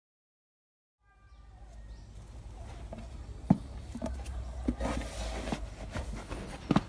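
Rubber wellington boots being pulled on, the rubber rubbing and scuffing, with a few sharp knocks as the boots hit the concrete floor.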